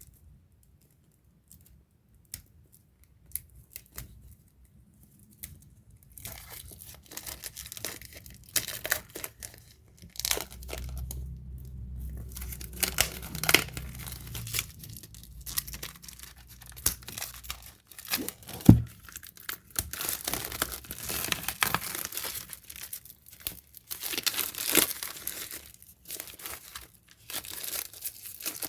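Packaging being torn open and crumpled by hand. A few scattered light clicks come first, then from about six seconds in there is continuous crinkling and ripping, with one sharp snap a little past the middle.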